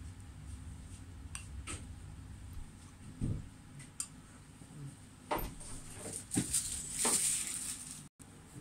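Plastic spoon and ceramic bowls clinking and knocking as food is scooped, a few scattered light clicks, with a louder, longer scraping noise about seven seconds in.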